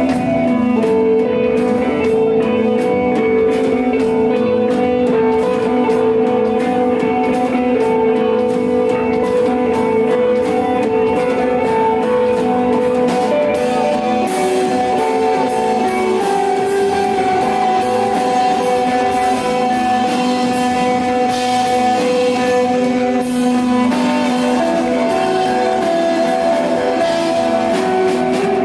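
Rock band playing live: long-held electric guitar notes over bass and drums, with a steady run of cymbal strikes.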